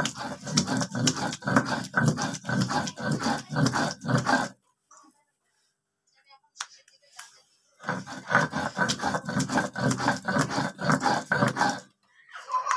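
Stone roller of a sil-nora grinding wet coriander-leaf paste on the stone slab, rubbed quickly back and forth in a steady scraping rhythm of about three strokes a second. It stops for about three seconds midway, then starts again.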